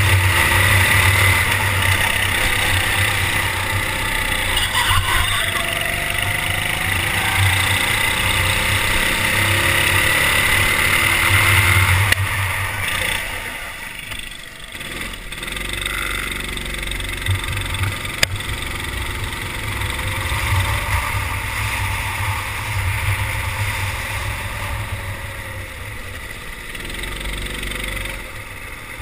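Onboard sound of a rental kart's four-stroke engine running under load. It is at full throttle for the first twelve seconds, drops sharply as the driver lifts for a corner, pulls again from about sixteen seconds, and falls away near the end as the kart slows.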